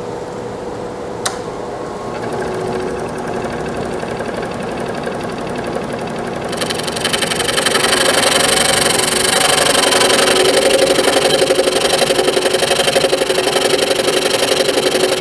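Scroll saw running: a click about a second in, then the saw's running sound gradually building. From about halfway it gets louder and brighter as the reciprocating blade cuts dovetail tails into a cedar board, with a fast, even stroke.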